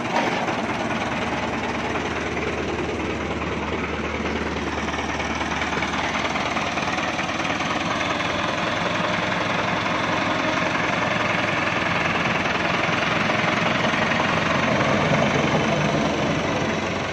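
Millat Massey Ferguson 385 tractor's diesel engine idling steadily.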